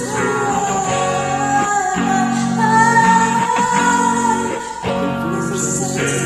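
Strummed guitar chords with a woman singing long held notes.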